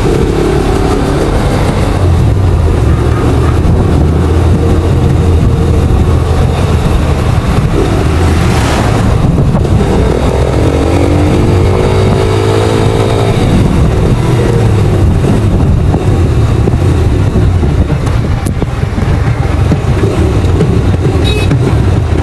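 Motorcycle engine running under way on the road, with the engine's pitch rising and falling once around the middle. A short high-pitched tone sounds near the end.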